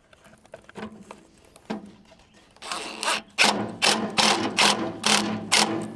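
Power drill driving sheet metal screws into a sheet-metal sawdust chute, after a few light knocks; the motor runs in repeated surges, about two and a half a second, for the last three seconds.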